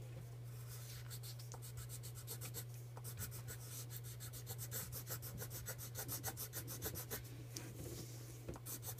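Pencil crayon scratching back and forth on paper in quick, even shading strokes, with a steady low hum underneath.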